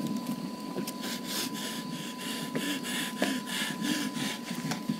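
Quick footsteps and rustling, about four steps a second, over a thin steady high-pitched tone.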